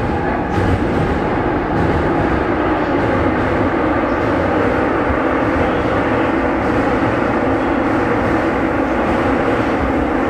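Seoul subway train running between stations, heard from inside the car: a steady, loud rumble of wheels on track and car noise.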